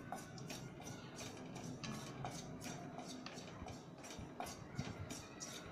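Spatula scraping and tapping in a kadhai while stirring carom seeds as they dry-roast, in quick regular strokes about two or three a second.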